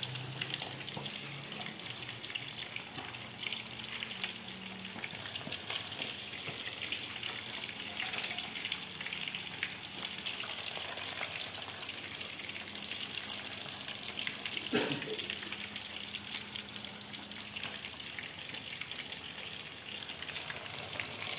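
Breaded chicken deep-frying in hot cooking oil in a pot: a steady crackling sizzle, with one brief louder sound about fifteen seconds in.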